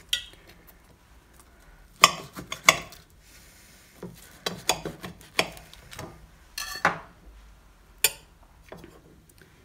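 Kitchen knife tapping and clicking against a plate while slicing fried chilli fritters down the middle: two sharp clicks about two seconds in, then a run of lighter taps, with one more click near the end.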